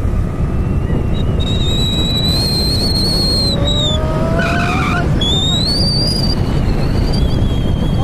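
Wind rushing and buffeting over a phone microphone held up while riding in the open on a moving vehicle, with a thin high whine that comes and goes and a lower tone rising in pitch about four seconds in.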